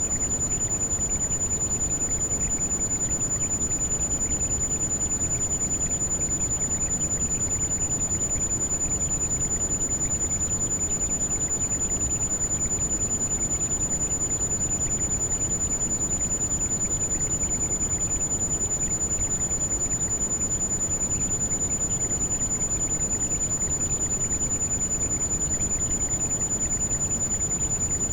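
Heavy rain falling steadily, an even rushing hiss weighted toward the low end. A thin, constant high-pitched whistle sits on top of it without a break: a tinnitus-like ringing tone.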